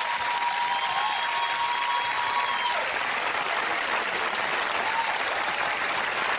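Large studio audience applauding steadily, with a held cheer rising above the clapping in the first few seconds.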